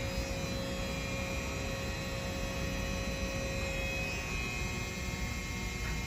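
Steady low mechanical hum with a few faint steady whining tones; the lowest of these tones fades out about two-thirds of the way through.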